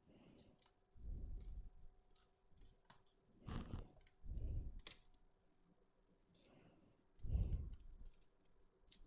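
Small plastic clicks and low handling knocks from an opened PS3 DualShock 3 controller as its internal plastic frame is worked out by hand. One sharp click about five seconds in.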